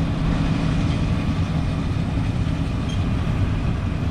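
Combine harvester running steadily in wheat: a constant low engine hum under a rumbling mechanical noise.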